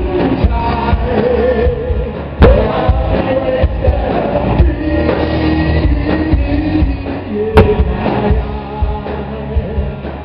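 Live rock band playing: electric guitars, bass guitar and drums, with a voice singing over them. Two loud drum hits stand out, about two and a half seconds in and again about seven and a half seconds in.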